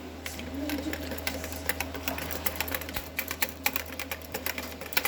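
Rapid, irregular clicking and tapping of kitchen utensils against a pot or bowl, several clicks a second.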